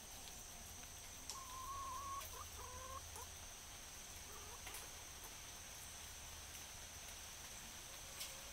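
Young hens calling softly: a long, even, high-pitched call a little over a second in, then a second shorter one, followed by a few short chirps. A steady thin high-pitched whine runs underneath.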